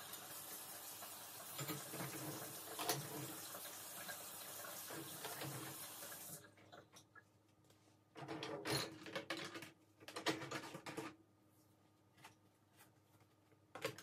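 Kitchen faucet running into the sink with a few knocks in it, shut off about six seconds in. Then two short spells of clattering and a single knock near the end.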